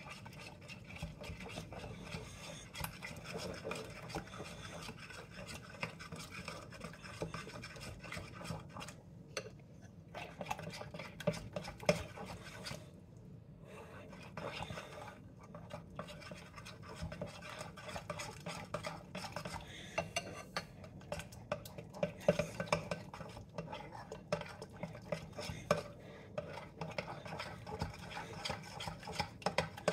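Spoon scraping and stirring in a bowl of batter, with a steady, irregular run of small clinks and scrapes and a couple of brief pauses.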